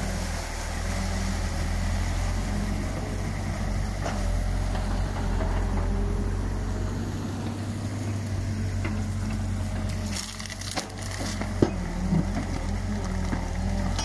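Excavator engine running steadily while its bucket tears through a beaver dam, the packed sticks and branches cracking and snapping. One sharp crack stands out about two-thirds of the way through.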